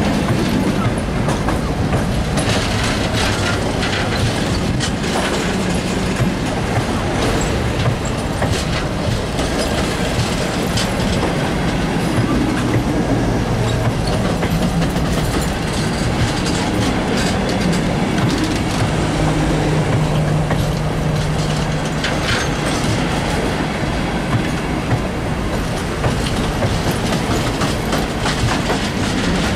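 Passenger coaches of a long-distance train rolling past close by at speed: a steady loud rumble and hiss of wheels on rails, with wheel clicks throughout.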